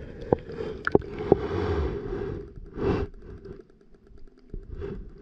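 Muffled sound picked up by a camera underwater in a weedy pond: a few sharp clicks and knocks in the first second and a half over a dull wash of water, which dies away after about three seconds into faint ticking.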